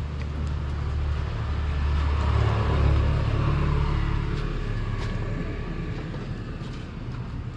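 A motor vehicle passing by, its low engine rumble swelling to a peak about three seconds in and then fading away.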